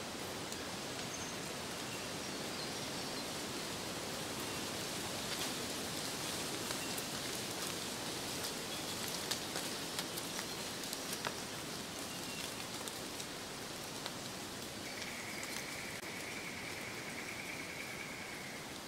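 Nature ambience of steady light rain: an even hiss with scattered small drip-like ticks. A steady high tone lasts about three seconds near the end.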